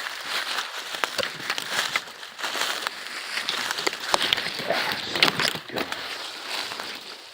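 Footsteps pushing through thick brush: twigs snapping and crackling irregularly, with branches and dry leaves rustling.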